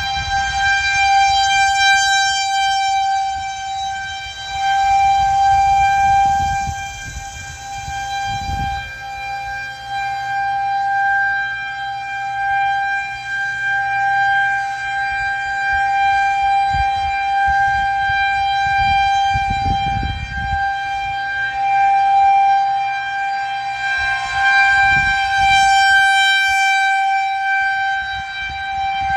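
Federal Signal 2001-130 rotating outdoor warning siren sounding a steady tone for a tornado warning, holding one pitch while its loudness slowly swells and fades.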